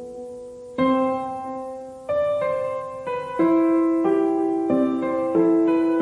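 Background music: piano chords, each struck and left to ring and fade, a new chord about every second and a half.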